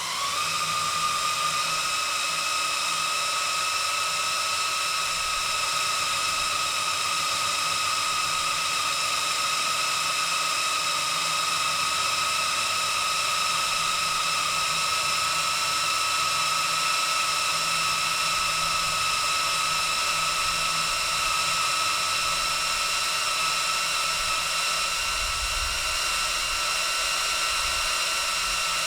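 Cordless drill boring into steel, its motor running at a steady high whine over the hiss of the bit cutting metal, the pitch creeping slightly upward.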